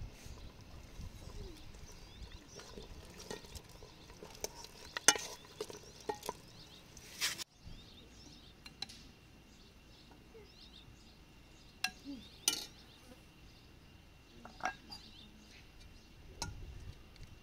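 Metal ladle scraping and clinking against a metal cooking pot as soup is ladled into bowls, with a handful of sharp clinks spread through.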